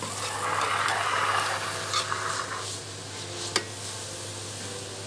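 Food sizzling on a hot surface for a couple of seconds, then fading, with a sharp click about three and a half seconds in.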